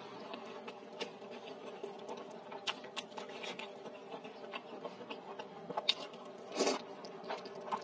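Close-miked eating of noodles in spicy soup: wet chewing and small mouth and chopstick clicks, with a short slurp of noodles a little over six seconds in. A faint steady hum runs underneath.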